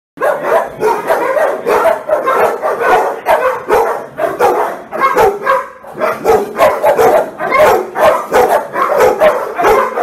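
Several shelter dogs in their kennel runs barking nonstop, loud and overlapping, with a brief lull a little past the middle.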